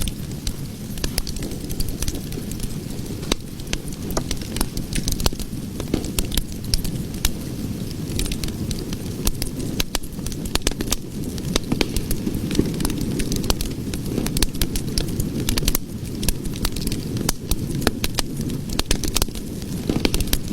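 Cooking fire burning with a steady low rumble of flames and constant irregular crackling and popping.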